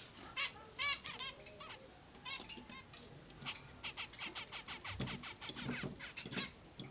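Zebra finches calling: a few short nasal calls in the first two and a half seconds, then from about three and a half seconds in a rapid run of short chirps, typical of chicks begging to be fed.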